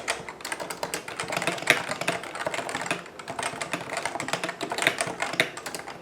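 Fast typing on a CM Storm Novatouch TKL keyboard with Topre hybrid capacitive switches: a dense, irregular run of soft keystrokes with a brief pause about three seconds in.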